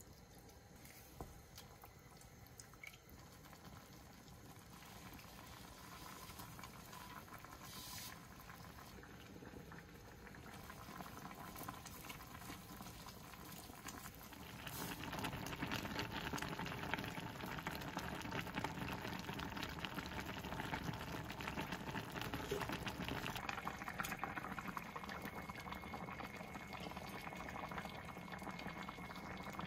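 Pot of kimchi stew bubbling on the stove. The bubbling is faint at first, grows slowly, and becomes a fuller, louder boil about halfway through.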